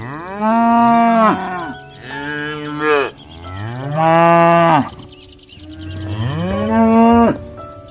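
Cattle mooing: four long moos, each rising and then falling in pitch, the second one softer than the other three.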